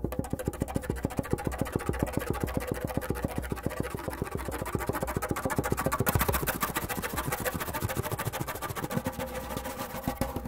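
Solo Persian hand-drum music: a very fast, unbroken roll of finger strokes over a few steady low drum tones, growing a little louder about six seconds in.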